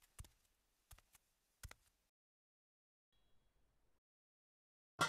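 A few faint, sharp single pops in the first two seconds: popcorn kernels starting to pop inside a lidded stainless steel pot. Near the end a sudden loud metallic clang rings out and keeps ringing.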